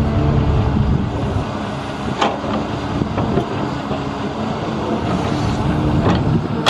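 Engine of heavy construction machinery running steadily, with a sharp knock about two seconds in and another near the end.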